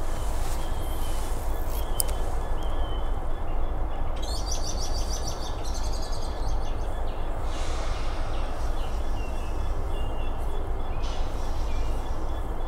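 Birds calling outdoors: a fast run of high chirps about four seconds in, and thin whistled notes scattered through, over a steady low background rumble.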